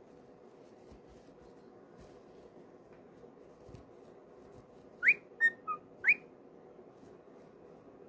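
Cockatiel whistling a short phrase of four quick notes about five seconds in. The first and last notes rise sharply, and the two between are short and level.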